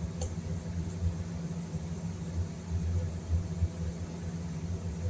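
Steady low background rumble, with a faint click about a quarter second in.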